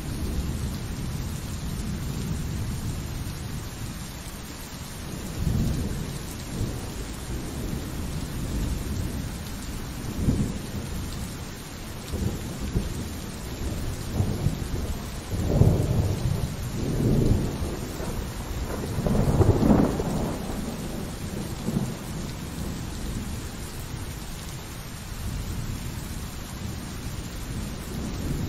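Steady rain with thunder rolling several times, deep rumbles that swell and fade, the strongest about two-thirds of the way through.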